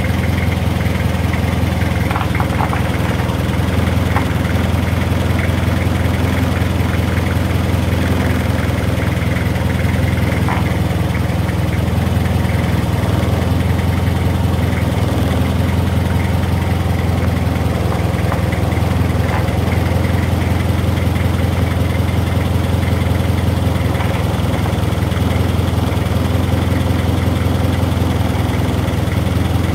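Pickup truck engine idling steadily, with a few faint clicks over it.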